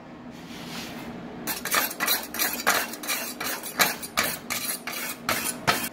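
Wire brush scrubbing a fresh aluminium MIG weld bead to clean it, in quick back-and-forth scratching strokes, about four or five a second, starting about a second and a half in.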